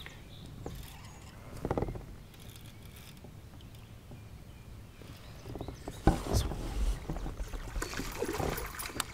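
A hooked fish splashing at the surface beside a kayak as it is brought to the net, with sharp knocks against the kayak. The splashing and knocks start about six seconds in, after a quieter stretch.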